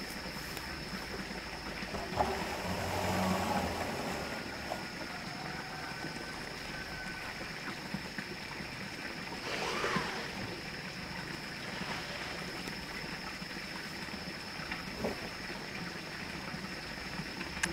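Corrugated sheets being handled and set along an earth bank: a knock about two seconds in and a louder rattle with a low wobble just after it, then a scraping noise near ten seconds and a few light clicks, over a steady outdoor hiss with a constant high thin whine.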